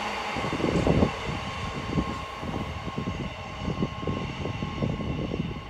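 The last wagons of a freight train of open box wagons rolling past, the wheel noise fading away, with irregular gusts of wind buffeting the microphone.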